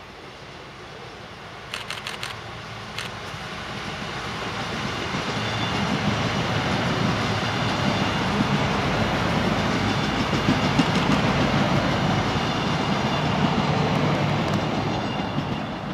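Two coupled Stadler GTW-type diesel railcars approaching and running past, their sound swelling to a steady rumble with wheel clatter and a faint whine, then fading near the end. A few sharp clicks come about two seconds in.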